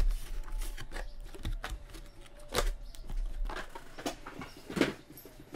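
Scattered light clicks, taps and rustles of trading cards and packs being handled and sorted, with two louder knocks about two and a half seconds in and near the end.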